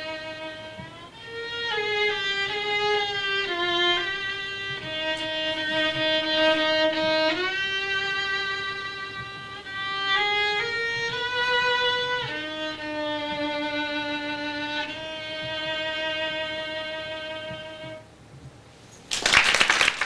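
Solo violin played slowly in long held notes that end about 18 seconds in. Applause breaks out just after.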